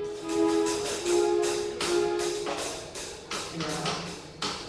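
Live band music: held pitched notes over a steady percussion beat, about two to three hits a second; the held notes fade out about halfway through while the beat carries on.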